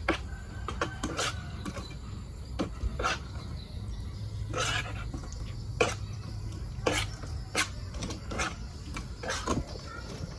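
Metal spoon stirring skinned frogs through thick flour batter in a stainless steel bowl: irregular clinks and wet scrapes against the bowl, about a dozen in all.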